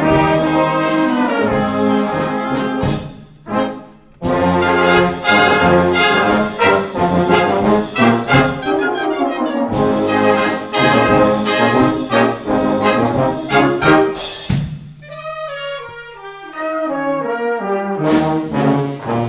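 Wind band with trumpets, trombones and tuba playing a full, loud passage, broken by a short pause about three and a half seconds in. About two-thirds through it drops to a quieter passage with a falling melodic line over a held low note, then comes back in loud near the end.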